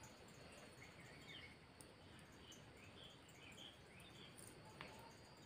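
Near silence: faint background hiss with scattered faint, short high chirps and one faint click a little before the end.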